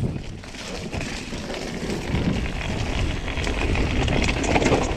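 Orbea Occam TR M30 full-suspension mountain bike rattling over a dirt forest singletrack: tyres crunching on dirt and the bike clattering over bumps in a dense run of small knocks, getting louder in the second half.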